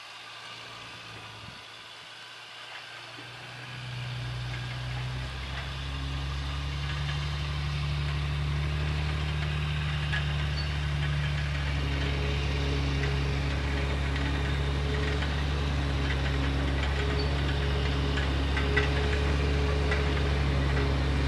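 Log truck engine running steadily at an even low pitch. It comes in about four seconds in and grows gradually louder, with scattered light ticks later on.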